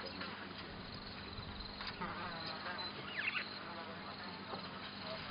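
Outdoor bush ambience of insects: a buzzing insect passes close for about half a second around two seconds in, over a steady faint high chirring.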